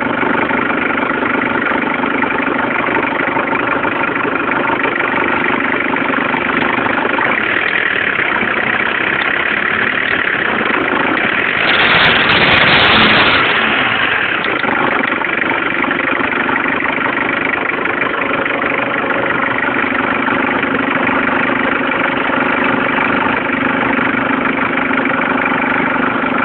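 Car engine idling steadily, swelling louder and higher briefly near the middle before settling back to idle.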